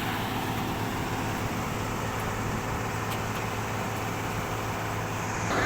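Heavy diesel engine running steadily with an even hum.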